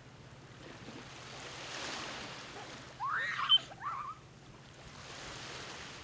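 Sea waves washing onto the beach, the surf swelling about two seconds in and again near the end. About three seconds in, a brief high-pitched call, twice, rises over the surf and is the loudest sound.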